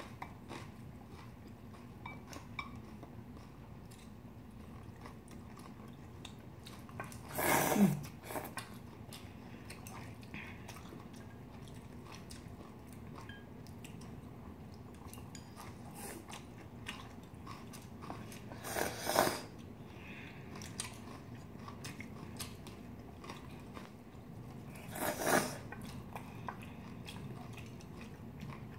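Close-miked eating: chewing and crunching of food with small clicks of chopsticks and spoons, broken by three loud slurps, about eight seconds in, again near nineteen seconds and near twenty-five seconds.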